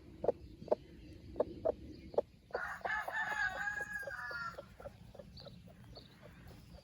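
A broody hen clucking in short, regular clucks, two or three a second, then a rooster crowing for about two seconds, after which the clucking carries on more faintly.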